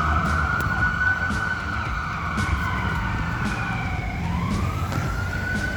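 Emergency vehicle siren in a slow wail: the pitch holds high, slides down over about four seconds, then climbs back up near the end, over a low rumble.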